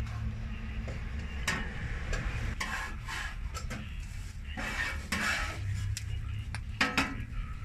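Metal spatula scraping and tapping on a flat metal taco griddle as chopped meat is scooped into tortillas, in irregular strokes with a couple of sharp clacks near the end, over a light sizzle of meat frying on the griddle.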